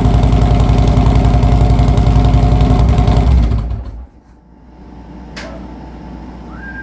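Harley-Davidson 103 Twin Cam V-twin idling through TAB Performance 50 Cal slip-on mufflers on a Stage 1 setup, a steady, even pulse, then shut off about three and a half seconds in. A single click follows a little later.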